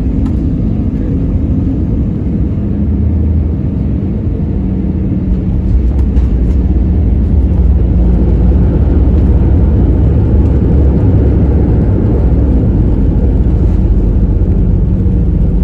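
Airbus A320 jet engines during landing: a loud, steady low rumble that grows louder about five and a half seconds in and holds.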